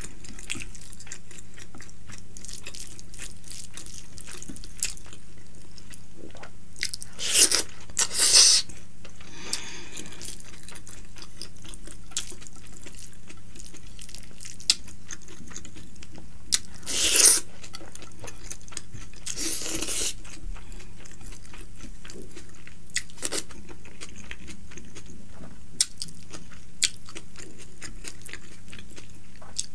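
Close-miked mukbang eating sounds: a person chewing and crunching mouthfuls of rice and fried fish eaten by hand, with scattered small clicks of lips and fingers. There are a few louder noisy bursts about a quarter of the way in, just past halfway, and about two-thirds in.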